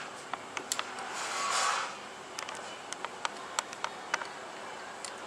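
Light clicks and ticks of metal crimping pliers, wire and a crimping sleeve being handled as the sleeve is fitted into the pliers' jaws, with a soft rustling swell about a second in.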